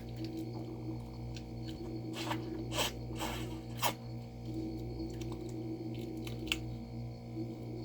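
Plastic snack cups being handled, a few short crinkles and scrapes clustered about two to four seconds in and one more near the end, over a steady low hum.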